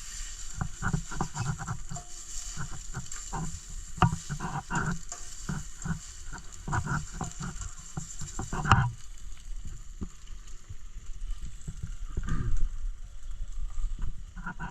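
Eggs frying in butter in a pan, sizzling, with repeated short scrapes and taps of a utensil against the pan as they are worked without a proper flipper. The sizzle drops off about nine seconds in, and the clatter becomes sparser.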